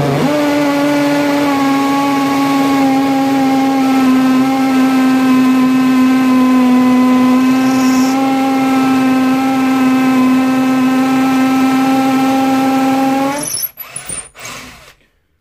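Ryobi R18PD3 cordless hammer drill running in hammer mode in second gear, boring a 10 mm masonry bit into an ordinary brick. It is a loud, steady whine for about thirteen seconds that stops suddenly, followed by a few short knocks.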